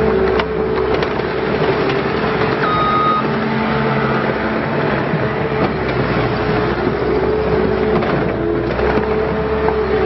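Bobcat T650 compact track loader's Kubota four-cylinder turbo diesel running steadily with a steady whine as the machine drives and turns on dirt, its tracks clicking and clattering. A brief high tone sounds about three seconds in.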